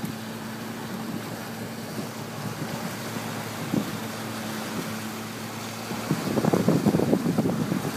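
A boat's engine runs with a steady low drone under wind and sea noise. From about six seconds in, louder irregular rumbling gusts of wind hit the microphone.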